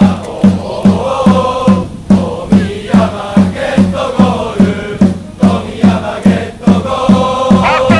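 Football supporters' chant: a large crowd of fans singing a chant in unison over a steady drumbeat, a little over two beats a second.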